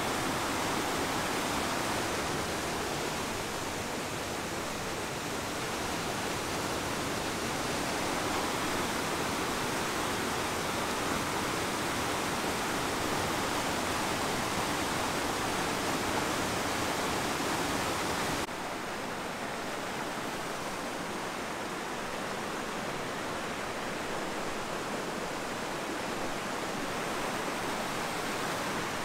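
Whitewater of a mountain creek rushing and cascading over boulders, a loud steady roar of water. It drops a little in level about two-thirds of the way through.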